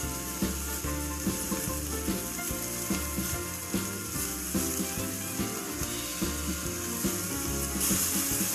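Chopped red spinach sizzling in a hot pan of oil-fried onions and spices as it is tipped in and stirred with a spatula; the sizzle grows louder near the end. Background music with a regular beat plays under it.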